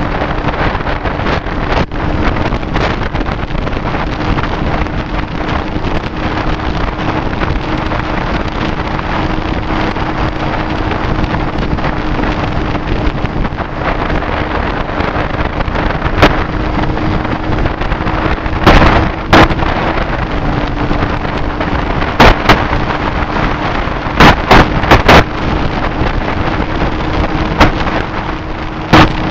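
Heavy wind rush over the microphone of a Triumph Street Triple cruising at steady road speed, with the three-cylinder engine's steady hum underneath. In the second half several sudden, very loud wind blasts hit the microphone.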